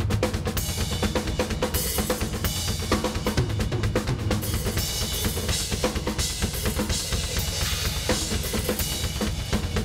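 Rock drum kit played hard and fast: kick drum, snare and cymbals, with the cymbals washing over several stretches.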